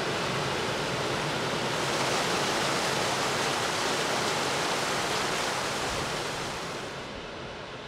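Small waterfall spilling between boulders into a pool: a steady rushing of water that fades out over the last second or so.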